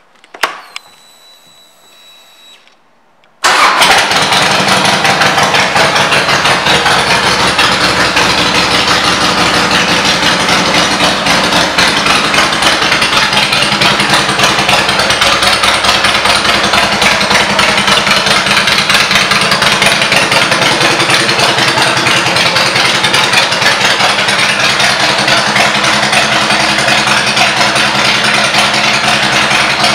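A 2002 Harley-Davidson Heritage Softail Classic's Twin Cam 88B V-twin, breathing through Vance & Hines pipes, fires up suddenly about three and a half seconds in. It then runs at a steady idle. Before it starts there is a click and a faint thin tone.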